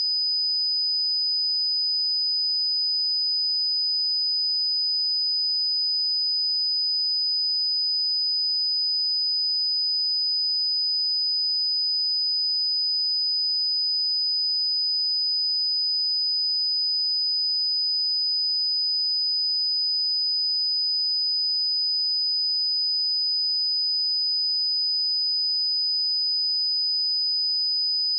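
Steady pure sine-wave test tone at 4991 Hz, a single high-pitched whistle-like pitch held unchanged.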